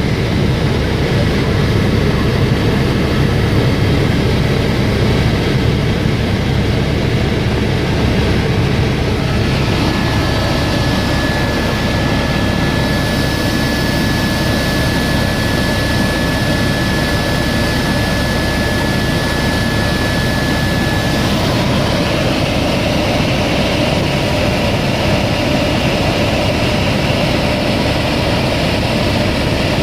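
Helicopter running steadily in flight, a loud, even engine-and-rotor drone. A thin, steady high whine sits on top of it for about ten seconds in the middle.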